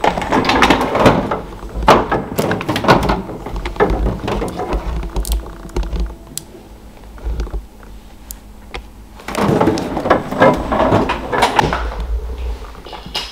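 A run of knocks, thuds and rustling handling noise, busiest in the first three seconds and again from about nine to twelve seconds in, quieter between.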